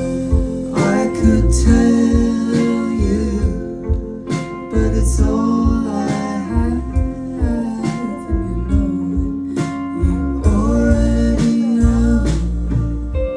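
Live indie band playing a song: guitar over bass and drums, with a voice singing.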